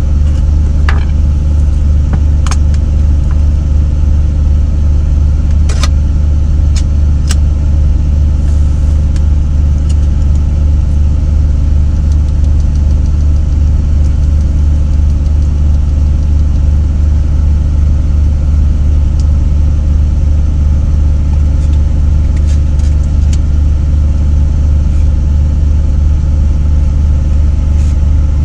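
Steady low hum of an idling diesel engine, heard inside a semi-truck cab. Now and then there are sharp clicks and taps from spice jars and cans being handled.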